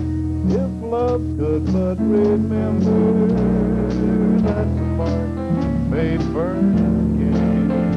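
Country-style music with guitar, over bass notes that change about once a second.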